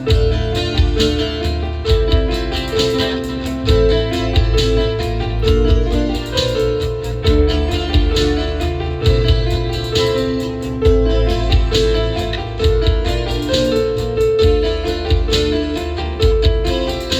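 Instrumental break of a Christian worship song: keyboard and guitar playing held chords over a bass line and a steady beat.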